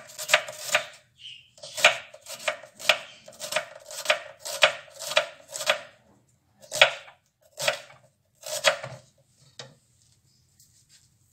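Kitchen knife chopping a red onion on a wooden chopping board: sharp knocks about two a second, slowing to a few single strokes about a second apart and stopping about ten seconds in.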